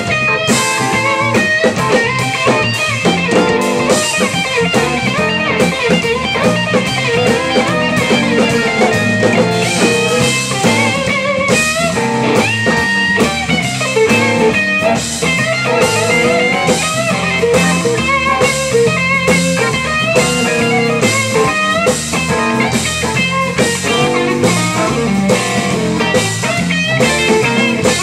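Live blues: an electric guitar playing over a drum kit, with a steady, regular cymbal beat.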